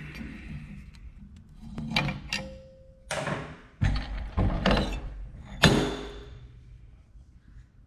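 Hand threading die and die stock working on a metal rod end: sharp metal knocks, one ringing briefly, short scraping passes, and a loud clack near the end.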